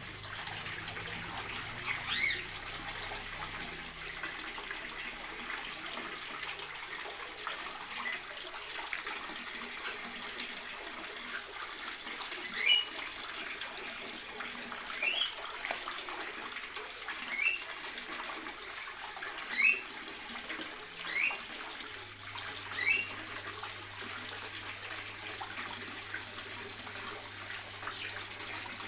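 Caged birds in an aviary giving short, sharp rising chirps, one early and then a run of about six, a second or two apart, over a steady rushing hiss.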